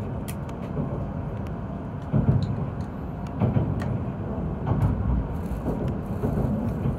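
Inside an E7-series Shinkansen train pulling out of a station: a steady low rumble of the running train with irregular knocks and clicks from the wheels on the track.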